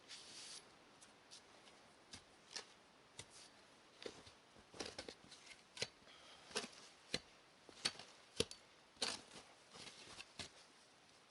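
Shovel digging in frozen soil and snow to free a stuck piece of buried scrap metal: faint, irregular scrapes and knocks, a little louder and more frequent in the second half.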